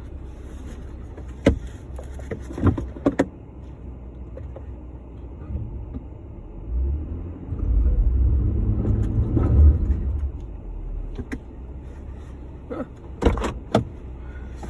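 Jeep Gladiator's low vehicle rumble, swelling louder for a few seconds in the middle, with a few sharp clicks or knocks near the start and again near the end.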